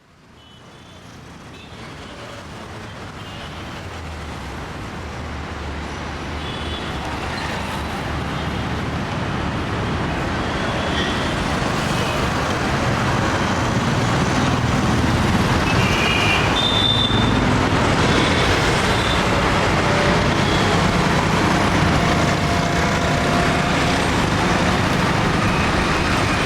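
Road traffic on a busy Indian city street: a steady wash of engines and tyres with a low rumble of heavy vehicles, fading in from silence over the first ten seconds or so. A few short high tones stand out over it about sixteen to eighteen seconds in.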